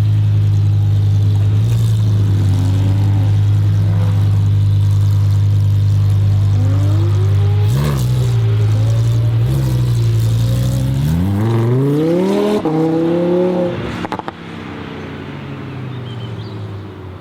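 Twin-turbo Audi R8 V10 engine running at a steady, loud idle, then two quick throttle blips about eight and nine and a half seconds in. From about eleven seconds in, the engine rises steadily in pitch as the car accelerates, with a brief break partway through, and the sound drops away sharply near fourteen seconds.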